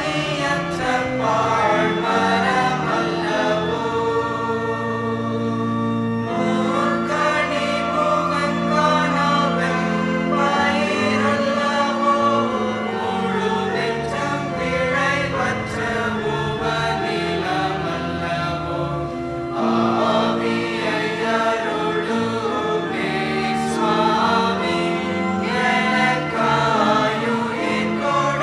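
Choir of men and boys singing a Tamil hymn, several voices holding different notes at once.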